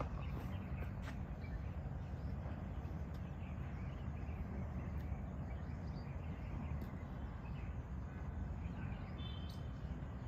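Steady low outdoor background rumble, with a few faint scattered ticks and faint bird chirps near the end.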